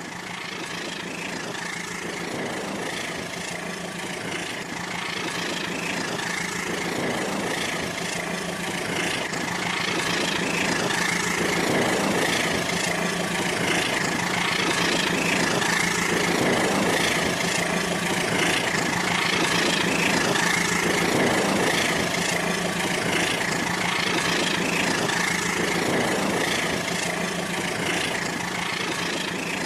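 Rail King toy train running on its track: a steady hum from its small motor mixed with a rattling running noise, growing a little louder through the middle and easing off near the end.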